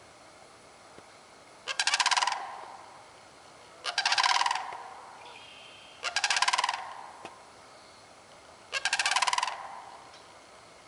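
Sandhill cranes calling: four loud, rolling, rattling calls, each under a second long, repeated about every two to three seconds.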